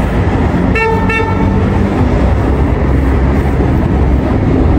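A car horn honks briefly about a second in, over a steady low rumble of traffic.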